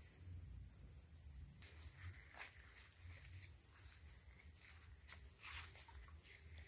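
Night insects trilling high and steadily, with one trill suddenly louder for just over a second about one and a half seconds in. Under the trilling, soft footsteps and rustling through grass and brush.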